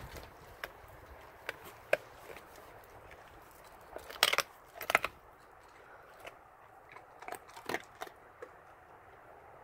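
A dog chewing a raw turkey carcass, its teeth crunching through the bones in scattered sharp cracks. The loudest cracks come about four and five seconds in, with a further few near eight seconds.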